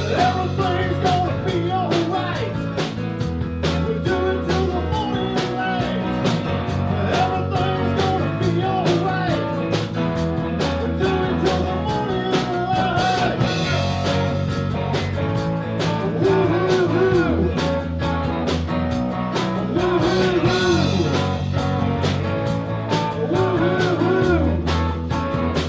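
Live blues-rock band playing: drum kit keeping a steady beat under bass and electric guitar, with a wavering lead line over the top.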